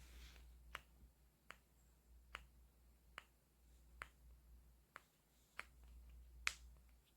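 Faint drips of water from a small indoor fountain, sharp and fairly regular, about one every second, over a low steady hum.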